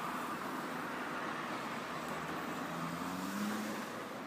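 Steady background rumble and hiss with no speech, and a faint low hum that rises slightly about three seconds in.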